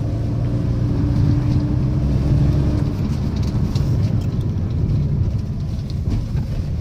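Inside the cabin of a small Maruti hatchback while driving: a steady engine hum for the first few seconds, then a rougher rumble of road and tyre noise.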